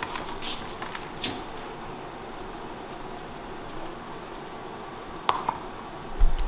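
Motor-driven conveyor-belt marble lift running steadily, with scattered sharp clicks of marbles, a louder pair a little past five seconds in and a low thump near the end.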